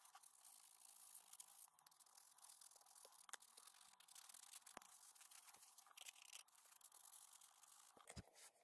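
Sandpaper rubbed by hand over a small carved poplar fishing lure: a faint, steady scratchy hiss, with a few small clicks and taps.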